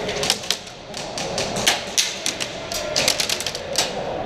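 Airsoft guns firing: sharp snapping clicks in irregular single shots and quick short bursts.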